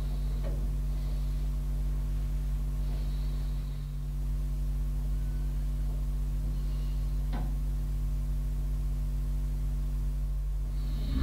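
Steady low electrical hum, like mains hum, with a couple of faint clicks, one about seven seconds in.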